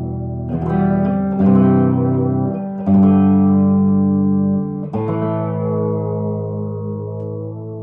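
1968 Gibson SG Junior electric guitar with its single P90 pickup playing sustained chords, four strums about half a second, one and a half, three and five seconds in, the last chord left ringing and slowly fading.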